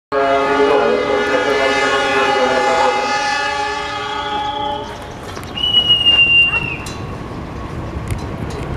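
Air horn of a CC 206 diesel-electric locomotive sounding one long, loud chord for about five seconds. About a second after it fades, a short high-pitched squeal, with scattered clicks after it.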